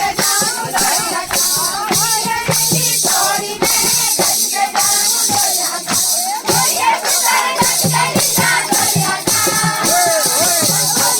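A song with singing over a steady beat and shaker-like percussion.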